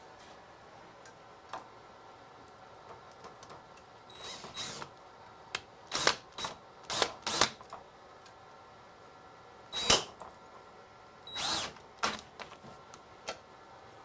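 Cordless drill/driver run in short trigger bursts, about eight spread from about four seconds in, turning hex bolts against Nylock nuts. The loudest burst comes near ten seconds in, and small clicks sound between the bursts.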